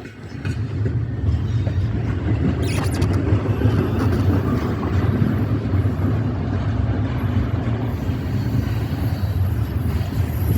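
Norfolk Southern freight train rolling past: a steady low rumble of wheels on the rails.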